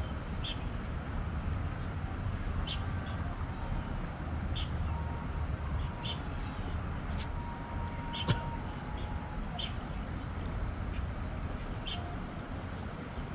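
Outdoor ambience: a steady low rumble under an even hiss, with short high chirps every second or two and one sharp click about eight seconds in.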